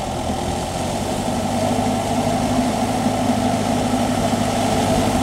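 Kubota V2403 four-cylinder turbo diesel, taken from a DC60 combine harvester, running steadily under load on a ride-on paddy tiller. It grows a little louder as the machine comes closer.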